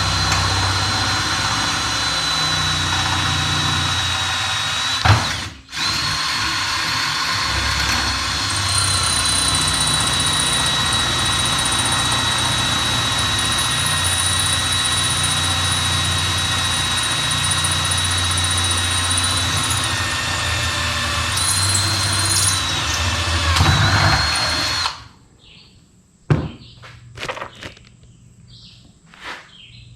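A power tool running steadily with a high whine, briefly stopping about five seconds in, then switching off near the end, followed by a few light knocks.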